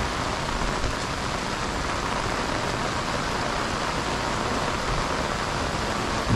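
Heavy rain falling steadily on pavement and grass in a sudden downpour, an even hiss.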